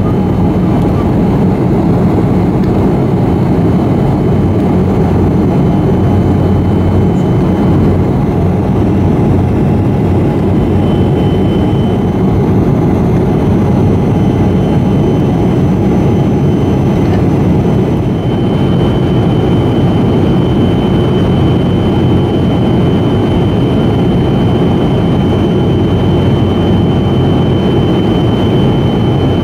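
Jet cabin noise of an Antonov An-158 in flight, heard from inside next to its wing-mounted Progress D-436-148 turbofan. A loud, steady rush carries a thin high whine that grows stronger a little past halfway.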